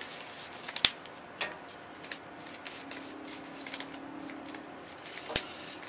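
Trading cards being handled and laid down on a table: a run of light rustles and ticks with a few sharp taps, the loudest a little under a second in.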